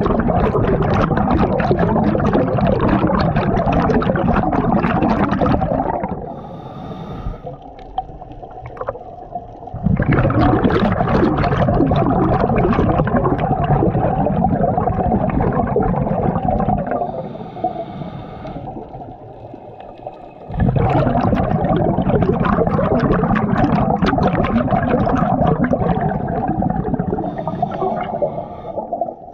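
A scuba diver's breathing through the regulator, heard underwater close to the head: three long bursts of exhaled bubbles, each lasting several seconds, with a quieter hiss of inhalation through the regulator between them.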